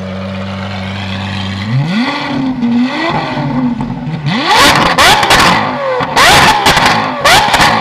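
Lamborghini Aventador SVJ's 6.5-litre V12 breathing through a Gintani aftermarket exhaust, idling steadily and then being revved: a couple of gentle blips about two seconds in, then from about four seconds sharp revs to high rpm, with loud cracks and pops from the exhaust as the revs drop.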